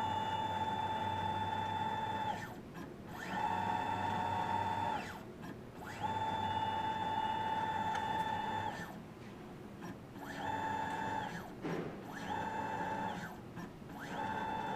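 Motor whining at a steady high pitch in a series of runs of one to three seconds, each gliding up in pitch as it starts and down as it stops, with short pauses between. This is the strange motor noise of an intermediate stage that does not move.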